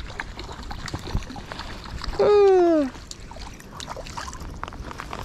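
Hooked brook trout splashing and thrashing at the surface of a creek as it is reeled in, with scattered small splashes and ticks. About two seconds in, a person gives one drawn-out exclamation falling in pitch, the loudest sound here.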